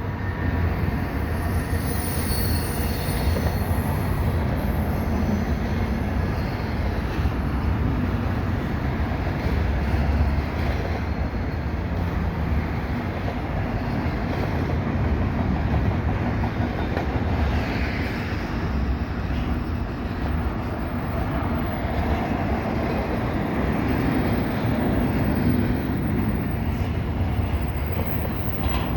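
Double-stack container freight train rolling past, with a commuter train passing it on the adjacent track: a steady rumble of steel wheels on rail, with a faint high wheel squeal about two seconds in.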